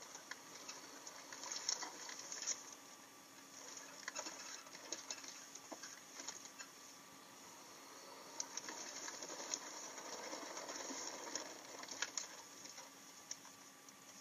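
Quiet inside a Humvee cabin: faint irregular clicks and light rattles over a steady low hum, with a soft hiss that swells for a few seconds after the middle and then eases off.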